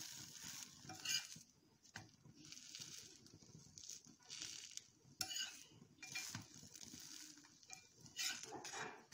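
Egg-coated bread frying in ghee on a dosa tawa, sizzling faintly in patches, while a metal spatula scrapes and taps against the pan several times.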